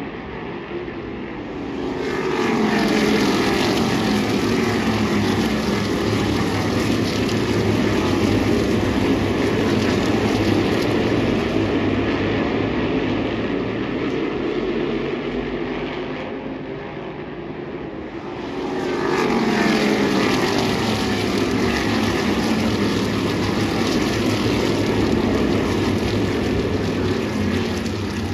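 A pack of Tour Modified race cars running their V8 engines, the sound swelling twice as the field comes past, each time with falling pitch sweeps as the cars go by.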